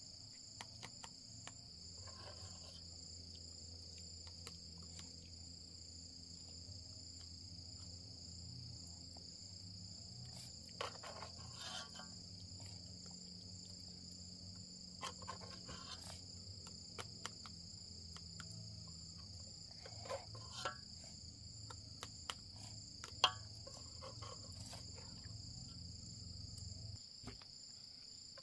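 Steady high-pitched insect chorus, with scattered clinks and scrapes of a spoon scooping rice in a metal pot and a plastic cup.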